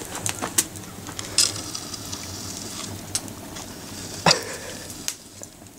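Wood campfire crackling, with scattered sharp pops; the loudest comes a little after four seconds in.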